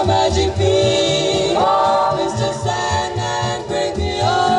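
Female vocal trio singing 1940s-style close harmony, held notes sliding up together twice, over a swing band backing with a steady bass line.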